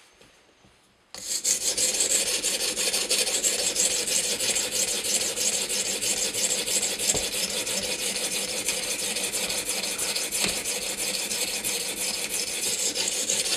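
Wetted sharpening stone on an Edge Pro guide arm rubbed rapidly back and forth along the CTS-20CP steel edge of a Spyderco Paramilitary 2, a steady gritty scraping that starts about a second in. It is grinding a new bevel on the second side of the blade.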